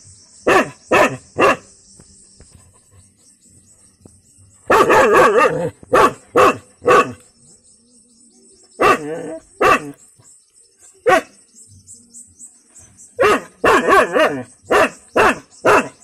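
Medium-sized black-and-white dog barking in irregular bouts: three barks, then a quick flurry about five seconds in and single barks with pauses, then a fast run of about seven barks near the end.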